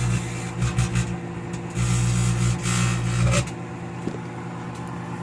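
Microwave oven running with a plasma ball arcing inside: a loud mains hum with a crackling, buzzing discharge over it. About three and a half seconds in the hum and crackle cut off suddenly as the magnetron stops, leaving a quieter steady background.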